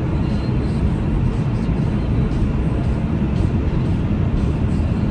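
Steady low rumble of a car driving on a winter road, heard from inside the cabin: tyre and engine noise with no distinct events.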